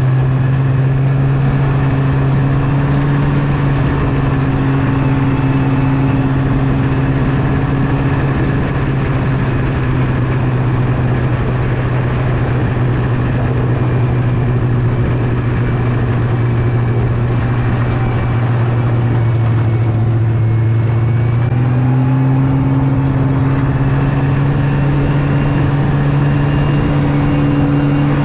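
Yamaha Venture snowmobile engine running at a steady speed while riding, its pitch sagging a little through the middle and picking up again about two-thirds of the way in.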